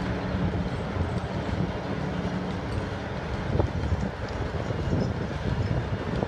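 Bucket-wheel excavator digging: the machine's steady running hum under irregular clattering and crunching as the wheel's buckets cut into the earth face, with one sharp knock midway.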